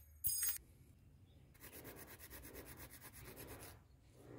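A small hand file scraping quickly back and forth across the cut end of a thin metal rod, in short strokes about ten a second for around two seconds. It follows a brief metallic clatter near the start.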